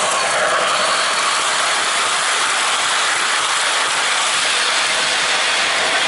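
O-gauge MTH RailKing Crusader model train running past close by: the locomotive and its passenger cars rolling on three-rail track with a steady mechanical running noise.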